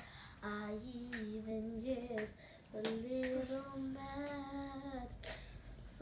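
A young girl singing in a clear child's voice, holding long notes, with a short breath break about two and a half seconds in and a long sustained note after it.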